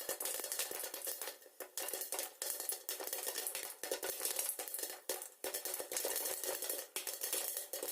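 Popcorn kernels popping rapidly under the lid of a kadai over high flame, a dense, irregular run of sharp pops.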